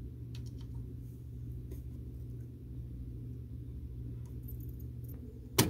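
A steady low hum with a few faint ticks, and one sharp click near the end.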